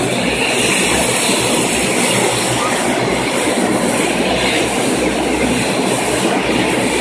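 Dash 8 Q400 turboprop airliner taxiing, its engines and propellers making a loud, steady rushing drone.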